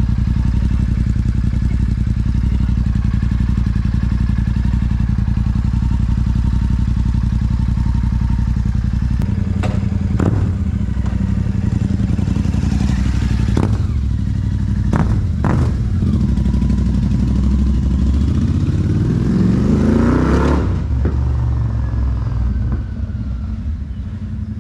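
Royal Enfield Super Meteor 650's parallel-twin engine idling steadily through an aftermarket Rhino Racing twin exhaust. About ten seconds in come several quick, sharp throttle blips, then a long rev rising in pitch that breaks off, after which the engine sound drops away as the motorcycle moves off.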